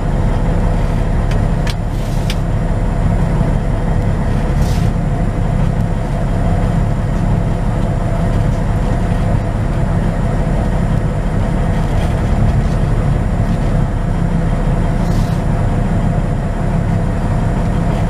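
Semi truck's diesel engine running at low speed with a steady low drone, heard from inside the cab as the truck pulls out slowly.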